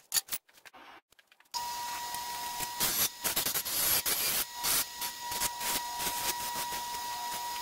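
A few light metal clicks, then a bench grinder running with a steady whine while a small aluminium shim is pressed against its wheel in rasping bursts to clean up its edges.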